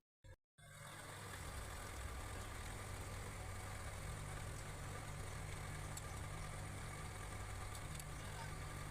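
Car engine idling steadily, starting about half a second in after a brief silence.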